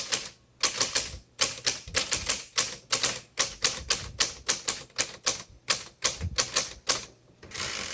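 Manual typewriter being typed on: quick, uneven key strikes at about four to five a second, with a longer scraping sound near the end.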